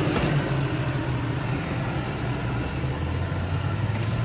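Off-road vehicle's engine running at low revs as it crawls over a trail obstacle: a steady low hum that drops a little in pitch about three seconds in.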